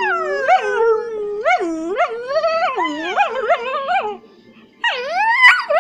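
Beagle-mix dog 'talking': a long run of whining, howling calls that swoop up and down in pitch, then after a short pause another burst starts near the end.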